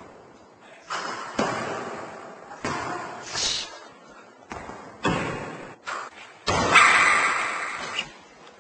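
A basketball bouncing and striking hard surfaces: about nine irregular thuds, each followed by a long echo in a large hall, with a louder, longer burst of noise about two-thirds of the way through.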